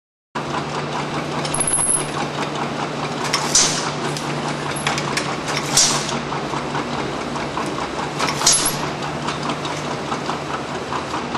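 Pneumatic paint-can top-off line running with a steady mechanical hum, broken three times by a short hiss of compressed air from the pneumatic valves, roughly every two to three seconds.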